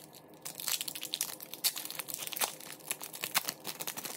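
Foil wrapper of a hockey card pack crinkling and crackling as it is pulled open by hand, a quick irregular run of sharp crackles starting about half a second in.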